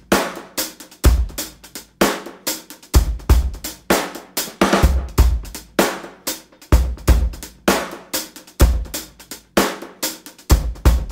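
Background music with a steady drum beat of kick drum, snare and hi-hat.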